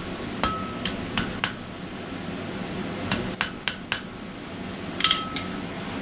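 Hand hammer striking a mild-steel bracket on an anvil while it is reverse-bent. The blows come in three quick groups, about four, then four, then a close pair, and several leave a short ringing tone from the anvil.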